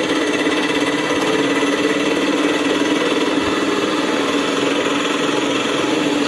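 Small electric toy motor buzzing steadily at a constant pitch, without a break.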